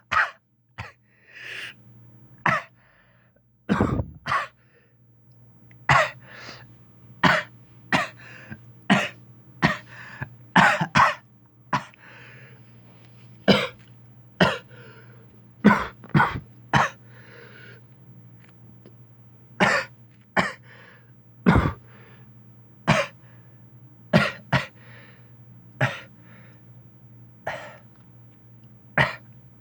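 A long run of short, sharp coughs, one roughly every second and sometimes two close together, with a few seconds' pause about two-thirds of the way through. A steady low hum runs underneath.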